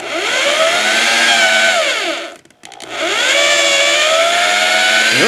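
Corded electric drill, its broken cord wiring just repaired, whining as the bit bores into a wooden board. It spins up, runs about two seconds, stops briefly as the trigger is let go, then starts again and runs on.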